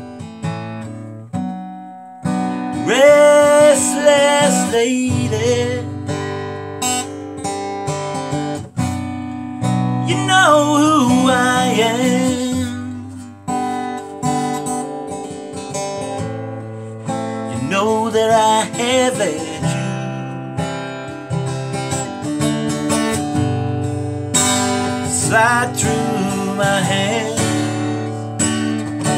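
Acoustic guitar strummed and picked in a slow accompaniment, with a man's wavering sung phrases over it roughly every seven seconds.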